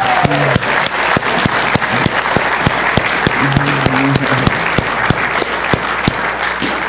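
A church congregation applauding steadily, a dense crowd of handclaps with individual sharp claps standing out.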